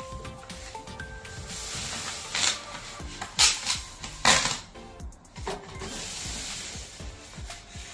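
Plastic protective bag crinkling and a foam packing insert rubbing as they are pulled off a new speaker, with the loudest rustles coming in a few short bursts in the middle, over quiet background music.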